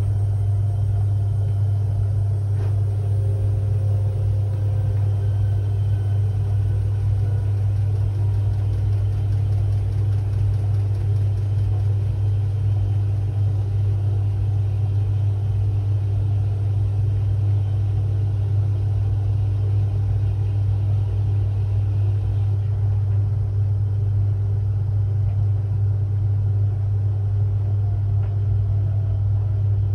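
Washing machine on its Quick 30 programme (800 rpm), spinning near the end of the cycle: a loud, steady low hum that stays even throughout.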